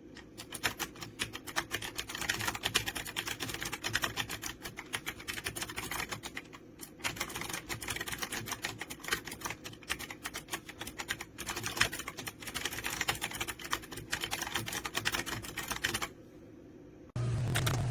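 Fast typing on an AULA F2088 mechanical keyboard with clicky blue switches: a dense, rapid run of key clicks, pausing briefly twice and stopping about sixteen seconds in. A short low hum follows near the end.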